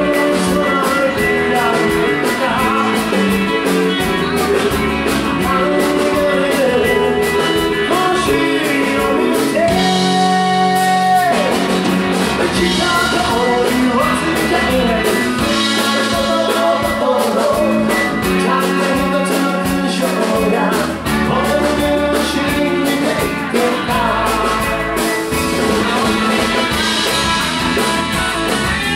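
Live rock band playing: a woman singing over electric guitar, electric bass and a drum kit. Around ten seconds in the bass and drums drop out briefly under a held note, then the band comes back in.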